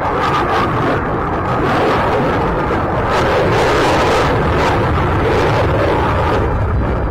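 Loud, steady noise of a jet aircraft flying overhead.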